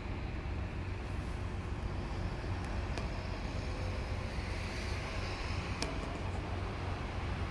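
Steady low rumble of a docked ship's machinery running, with two short sharp clicks about three and six seconds in.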